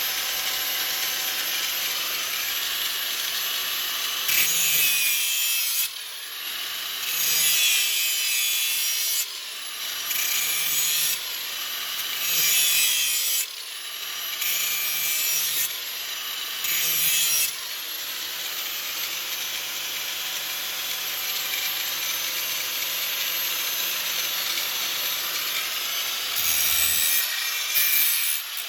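Electric grinder running steadily, with repeated passes of the disc along the edge of a steel lawn mower blade to sharpen it. Each pass is a harsh one-to-two-second rasp, about seven in all, with a longer pause before the last.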